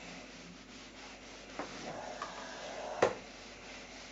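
Small iron sliding over cotton patchwork on a pressing board, with the fabric rubbing as it is smoothed flat. A sharp knock about three seconds in, with a smaller tap a little earlier.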